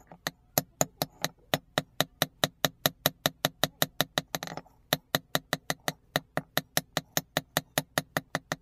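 Hand hammer striking an axe head on a steel anvil block: rapid, even blows about five a second, each with a metallic ring, beating the damaged axe blade back into shape. The blows break off briefly a little past halfway.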